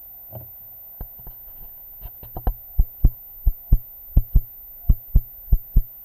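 Handling knocks on the scope camera: a run of low, sharp thumps, sparse at first and then coming in quick pairs about a quarter second apart, as the camera on the rifle scope is touched and adjusted.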